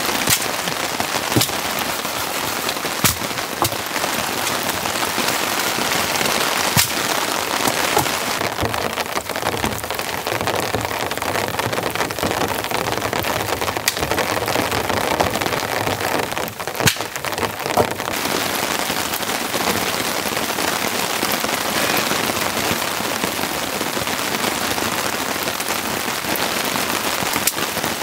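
Heavy rain falling steadily, with scattered sharp ticks and knocks over the steady noise of the rain.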